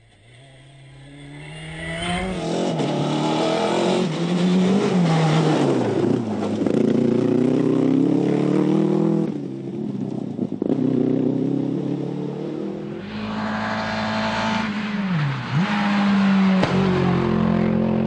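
Rally cars' engines revving hard at racing speed, the pitch climbing and dropping again and again with gear changes and lifts off the throttle. The first car grows quickly louder over the first couple of seconds as it comes up to the camera.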